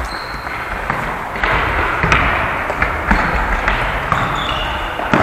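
Futsal ball being kicked and bouncing on a sports-hall floor, with players' running footsteps: a handful of sharp thuds that echo in the large hall.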